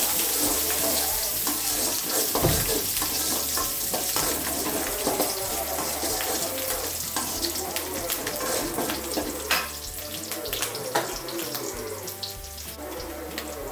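Food frying in a pan, a sizzling hiss that dies down gradually, with scattered light clicks of a utensil against the pan.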